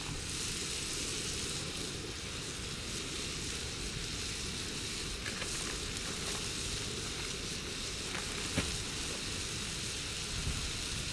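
Beaver meat sizzling steadily on a griddle plate over a camp stove, with a couple of light clicks about two-thirds of the way through.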